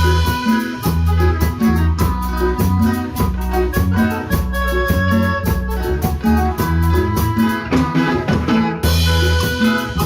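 A band playing a song live, with a steady beat and rapid cymbal strokes over held melody notes.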